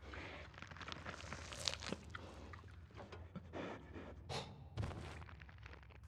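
Footsteps with crunches and scrapes on rock, irregular and faint, over a low steady hum of ambience.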